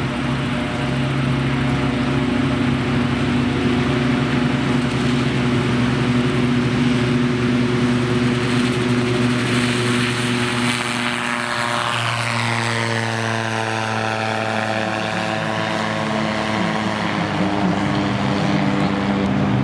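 AutoGyro Cavalon gyroplane taking off: its Rotax four-cylinder engine and pusher propeller run at full power in a steady drone. A little past the middle the pitch drops as the gyroplane lifts off and heads away.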